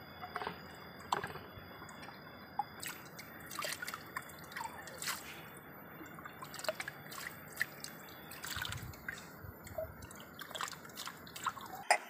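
Water dripping and splashing in small irregular drops as drinking glasses are dipped and rinsed by hand in a shallow stream, with a sharper knock near the end.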